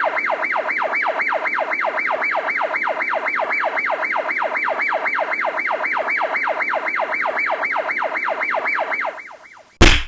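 Siren sound effect: an electronic wail repeating a fast falling sweep, about four times a second, fading out near the end. It is followed by one loud sharp hit.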